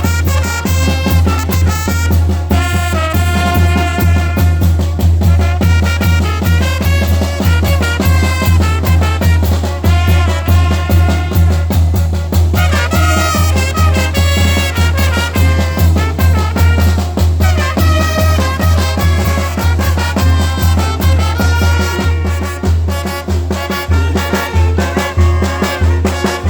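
A village brass band (banda de viento) with young players performing an upbeat Latin tune: brass carrying the melody over a steady, pulsing bass beat.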